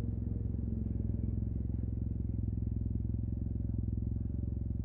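Yamaha TMAX 560 maxi-scooter's parallel-twin engine, breathing through an Akrapovic carbon full exhaust system, idling steadily with an even low pulse and no revving.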